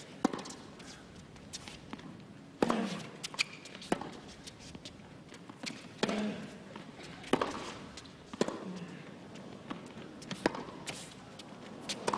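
Tennis rally: racquets strike the ball about every one and a half seconds, with fainter ball bounces and footsteps between. Several strokes are followed by a short grunt from the player.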